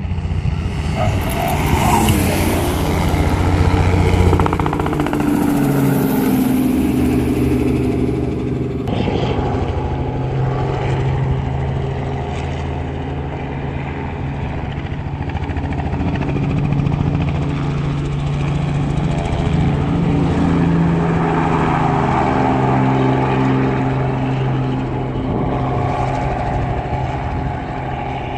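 Engines of a low-flying Robinson R44 helicopter and a Pagani supercar running together. Their tones slide down in pitch a few seconds in as they pass, then settle into a steady drone.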